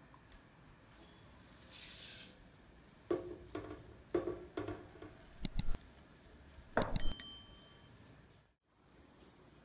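Sound effects of a subscribe-button animation: a short whoosh about two seconds in, then mouse clicks and a bright bell ding that rings out for under a second near the end. Soft knocks in between, from the silicone spatula stirring custard in a steel saucepan.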